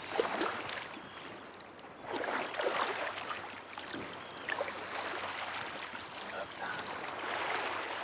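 Hooked European sea bass splashing and thrashing in shallow water as it is drawn in and landed at the shore, in irregular bursts of splashing.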